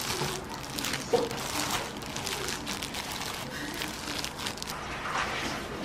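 Sliced lemons being tossed with sugar in a bowl by a hand in a plastic glove, to coat them for lemon syrup: an irregular wet crackling and rustling of sugar, fruit and glove.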